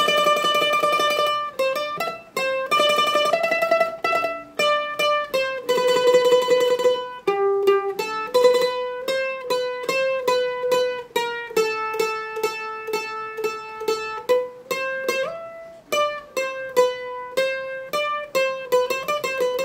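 A mandolin playing a picked single-note melody, the introduction of a song. Some held notes are sustained with fast tremolo picking, and others are plucked one at a time.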